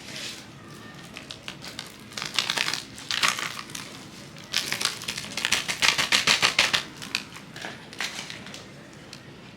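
Rapid crinkling and rattling in two longer runs, about two and five seconds in, with scattered small clicks between, as curry seasoning is put on raw goat meat.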